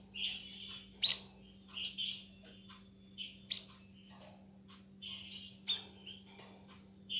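White-breasted babbler (tepus dada putih, the 'sniper bird') calling: short, sharp, dense high calls at irregular intervals, the loudest a snap about a second in and a longer call around five seconds. A faint steady low hum runs underneath.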